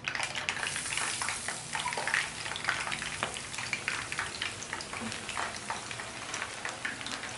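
Hot cooking oil sizzling and crackling as strands of instant potato fries dough are pressed into it and start to deep-fry. The sizzle brightens just after the start, then goes on steadily.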